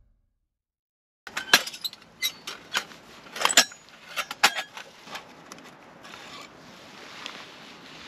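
Metal camping cookware being handled, giving a series of sharp, lightly ringing clinks and knocks that start about a second in.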